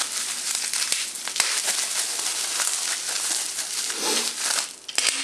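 Plastic bubble wrap crinkling and crackling as it is handled and pulled off a lens cap: a dense run of small crackles that thins out near the end.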